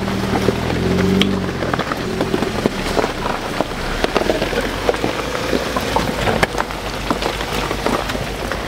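Jeep Wrangler crawling slowly over a dirt trail, its tyres crunching and popping over gravel, sticks and leaf litter in dense irregular crackles. A low engine hum fades out after about a second and a half.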